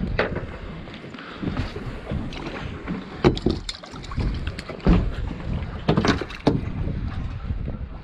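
Wind buffeting the microphone on a fishing boat's deck, with a series of sharp knocks and thumps of handling and footsteps on the deck.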